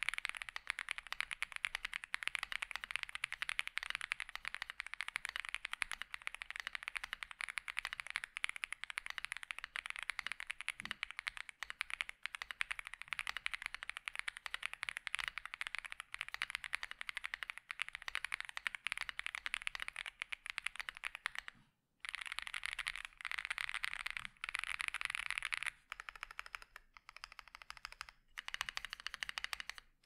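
Fast typing on a Womier RD75 aluminum mechanical keyboard with its stock pre-lubed linear switches and pre-installed PE foam: a dense run of quick, higher-pitched clacks, similar to Legos. About two-thirds through, the typing stops for a moment, then returns in shorter bursts with brief pauses.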